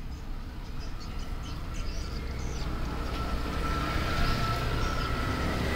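A vehicle engine's low rumble, growing steadily louder, with a faint steady whine above it in the second half.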